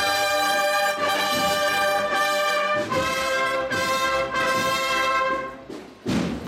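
Processional brass band playing a slow march: trumpets and trombones holding full chords that change about once a second, breaking off shortly before the end.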